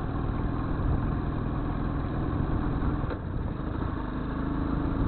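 Motorcycle engine running at low, steady revs, with a brief dip a little over halfway through.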